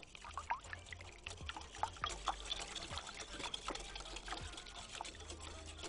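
Wire balloon whisk beating eggs and a little water in a glass bowl: liquid sloshing with a quick, irregular run of light clicks.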